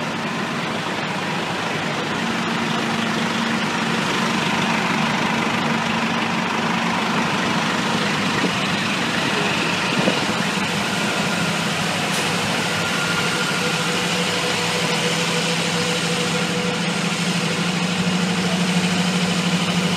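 Diesel engines of parked fire trucks and an ambulance idling, a steady low drone.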